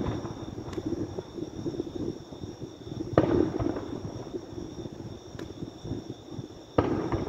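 Aerial firework shells bursting: two sharp booms, about three seconds in and near the end, each trailing off in a rolling, echoing rumble.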